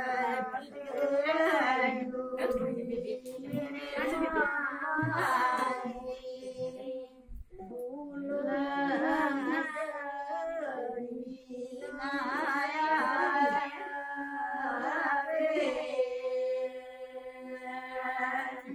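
Several women singing a wedding song together without instruments, in long drawn-out phrases with short breaks between them.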